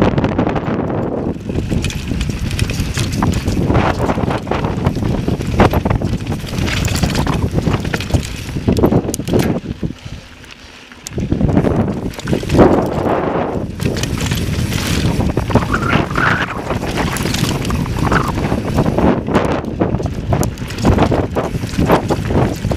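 Wind buffeting the microphone of a camera mounted on a mountain bike, over the rattle of the bike and its knobby tyres rolling across slickrock and rocky dirt, with frequent sharp knocks as it hits rock edges. The noise drops off briefly about ten seconds in, then comes back.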